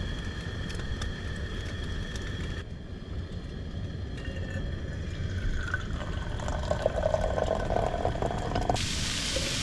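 Water pouring and splashing as camp dishes are washed, with a low steady rumble underneath.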